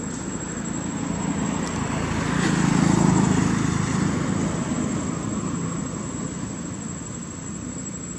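A passing engine: a low hum that grows to its loudest about three seconds in, then slowly fades away.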